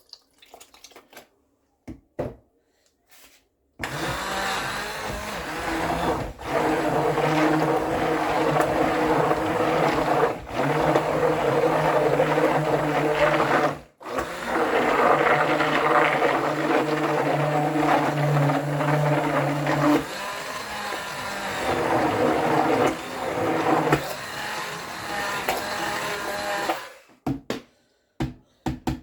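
Electric kitchen blender running, puréeing thick pumpkin soup with milk added to thin it. It starts about four seconds in, cuts out briefly about halfway, runs again, turns quieter for the last several seconds and stops just before the end.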